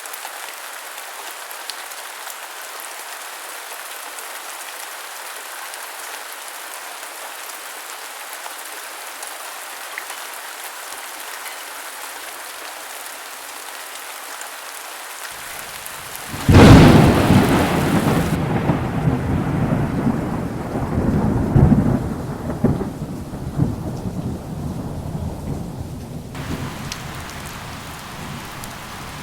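Steady heavy rain, then a thunderclap about halfway through that breaks suddenly and loudly and rolls into a rumble with a second swell. The rumble dies away over several seconds while the rain keeps on.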